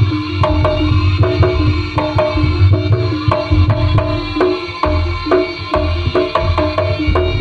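Jaranan gamelan music: kendang hand drums keep a steady, driving beat over low drum thuds, while pitched metal percussion strikes short repeated notes.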